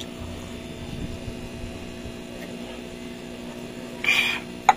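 Steady low electrical hum. About four seconds in, a short breathy exhale as a man finishes gulping water to cool a mouth burning from chilli, then a sharp click near the end.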